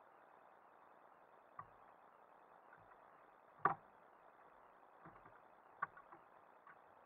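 A few light knocks and clicks over a steady faint hiss, the loudest about halfway through.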